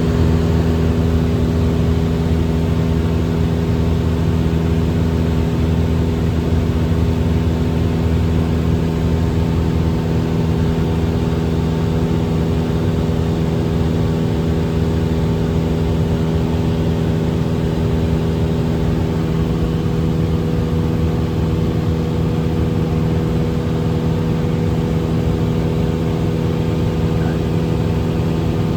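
Light airplane's engine and propeller droning steadily in cruise, heard inside the cabin, with an even, unchanging pitch loud enough to drown out speech.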